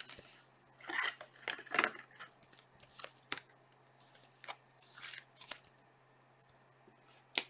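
Trading cards being handled and flipped through by hand: a string of short, irregular swishes and clicks as the stiff cards slide and tap against one another.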